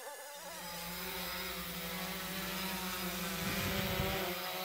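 3DR Solo quadcopter's brushless motors and propellers running in flight: a steady buzzing hum that grows slowly louder as the drone comes closer, with a brief low rumble about three and a half seconds in.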